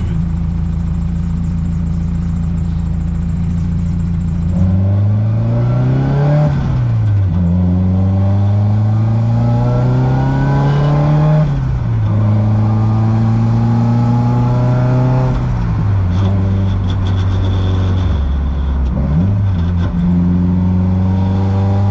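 Nissan SR20DET turbocharged inline-four in an S14 240SX, running steadily and then pulling hard through the gears: the engine note climbs and falls back at each shift, three times, before settling to steadier running near the end.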